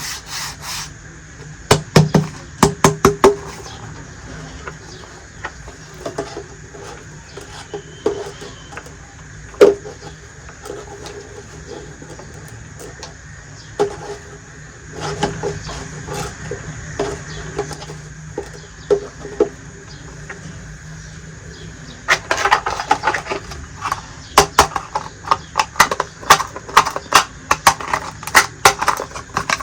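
Small plastic toy kitchen pieces being handled: irregular clicks and taps, coming thick and fast for the last third.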